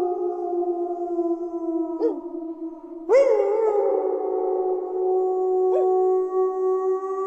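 Wolf howling: a long held howl trails off, then a new howl starts about three seconds in, rises and settles into a long steady tone. Brief short calls come in between.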